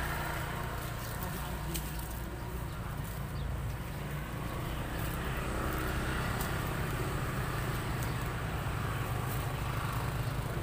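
An engine running steadily, with a few faint knocks.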